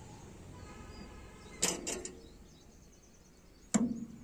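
Mahindra 475 DI XP Plus tractor's hand brake lever being worked by hand: a faint squeak, then a quick cluster of metal clicks from its ratchet about a second and a half in, and one loud clack near the end.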